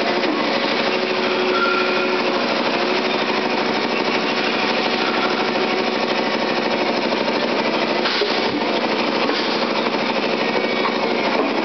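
Plastic injection moulding machine and factory machinery running: a loud, steady, fast mechanical rattle, with a short burst of sound about eight seconds in as the mould opens.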